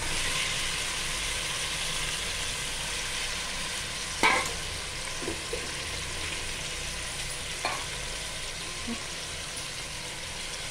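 Raw chicken pieces sizzling in hot oil in an aluminium pressure cooker: a steady frying hiss, strongest in the first few seconds. A sharp knock comes about four seconds in, with a few lighter clinks after it.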